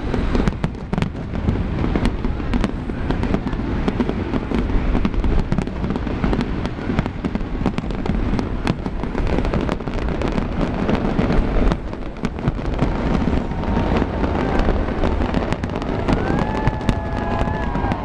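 Large fireworks display: many shells bursting in quick, overlapping succession, a continuous barrage of sharp cracks over a deep rolling boom.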